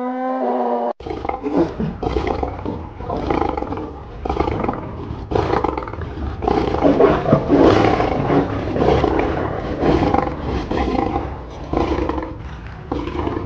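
A cow's moo cuts off abruptly about a second in. Then a lion growls and roars in a long run of rough, uneven calls over a low rumble.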